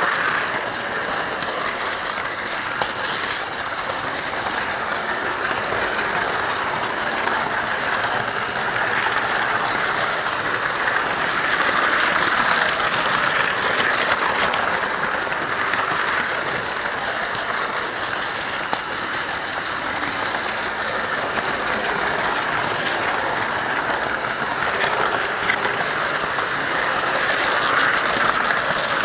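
Model train running on its track, heard from a camera riding on the hauled wagon: a steady whirring of small electric motors and wheels rolling on the rails, with a few faint clicks over the rail joints.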